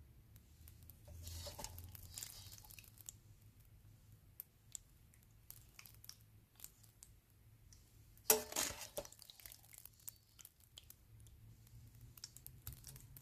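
Metal spoon scraping and clicking faintly against a steel bowl and a glass bowl as thick lemon pickle is spooned across, with one louder clink about two-thirds of the way through.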